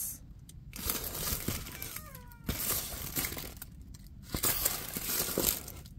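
Plastic protective film on a diamond painting canvas crinkling and rustling as the canvas is handled and bent, in uneven bursts with short pauses and small clicks, and a brief falling squeak about two seconds in.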